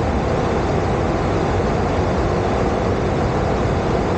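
Steady in-flight cockpit noise of a Boeing 737: an even rush of air over the flight deck with the engines' drone underneath, unchanging throughout.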